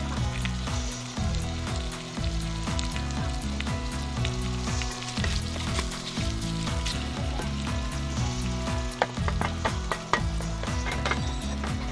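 Diced potatoes and carrots sizzling as they are stir-fried in a Staub cast-iron pot, with a wooden spatula stirring and scraping through them. About nine seconds in, a run of sharper knocks as mushroom pieces are tipped into the pot.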